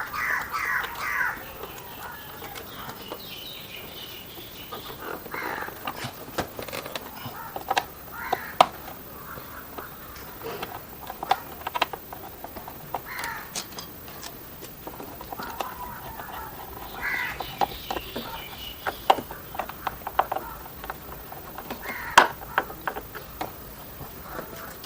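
Birds calling repeatedly in short harsh calls, with scattered sharp clicks and knocks; the two loudest knocks come about 8 and 22 seconds in.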